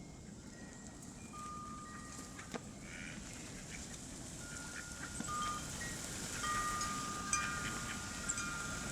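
Wind chimes ringing at random, each struck note holding on for a second or more and overlapping the next, growing busier in the second half, over a steady low rush of storm wind.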